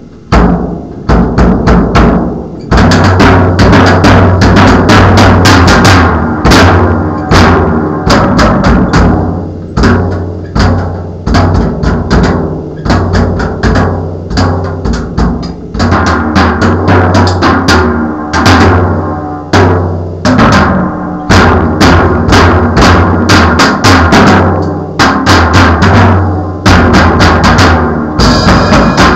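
A drum kit being played: a few scattered hits for the first couple of seconds, then a fast, dense run of strikes with a deep boom under them.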